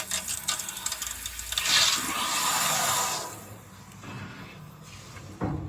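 Scraping and rubbing with many small clicks and knocks, loudest in the first three seconds and then fading, with a single knock near the end.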